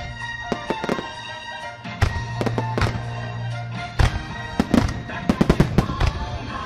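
Fireworks going off in quick succession, sharp bangs and crackles over continuous music. The bangs grow denser and louder from about four seconds in.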